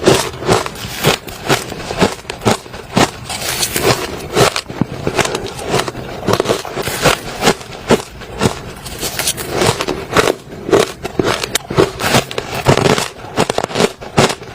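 A person biting and chewing soft, crunchy ice, close to the microphone: a steady run of crunches, several a second.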